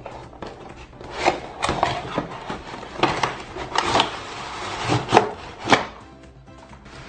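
Pieces of a plastic toy food set being handled: a run of knocks and rubbing, a scraping rustle around the middle, and two sharp knocks a little after five seconds in.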